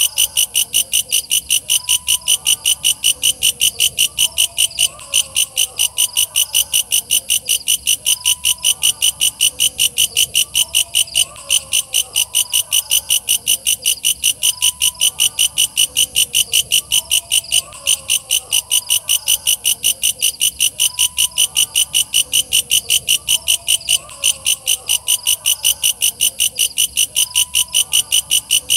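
Walang kecek bush cricket (katydid) calling: a loud, fast, even train of high, shrill chirps, several a second, repeated without a break.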